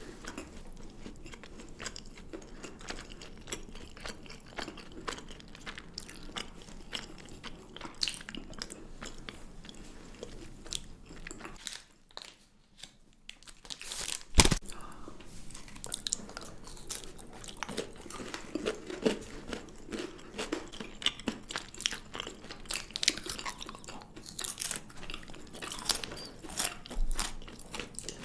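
Close-up chewing and biting of chocolate: a steady run of small crunches and mouth sounds, a short lull about halfway, then one sharp, loud crunch followed by denser crunching.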